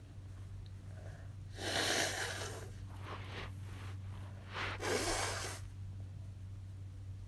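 A person sneezing twice, induced sneezes, each a loud noisy burst lasting about a second, the second about three seconds after the first.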